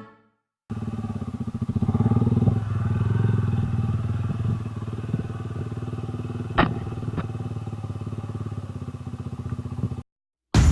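Motorcycle engine running at low speed, picking up a little about two seconds in and then settling back. Two sharp knocks are heard a little past the middle.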